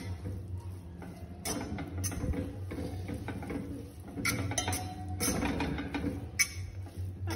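Metal fork scraping and clinking against a metal pot while tossing instant noodles. The strokes are irregular and pick up about a second and a half in, over a steady low hum.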